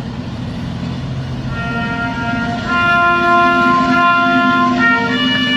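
Slow instrumental music with long held, wind-like notes playing over a loudspeaker during the salute to the national flag, over a steady low hum. The melody comes in about a second and a half in and grows louder partway through.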